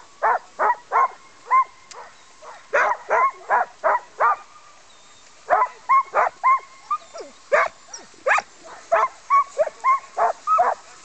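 Harnessed sled dogs barking, short sharp barks coming in quick runs of several at a time with brief gaps between, over a faint steady whine.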